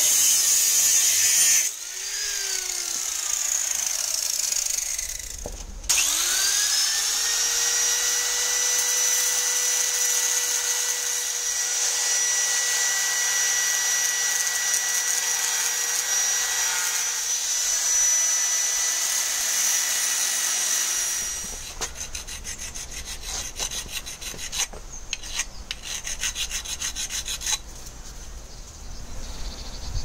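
Angle grinder grinding a metal bracket with a harsh, loud grinding noise. About two seconds in it is switched off and winds down, and about six seconds in it is started again, spins up to a steady high whine and grinds on until about 21 seconds, when it stops. The rest is irregular clicks and scrapes.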